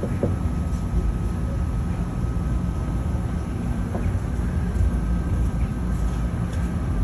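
Steady low rumble of outdoor background noise, with a faint steady whine above it.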